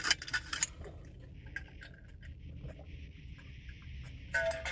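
Sharp metallic clicks as the cap of an insulated stainless-steel water bottle is unscrewed, then a few seconds of quiet drinking from the bottle.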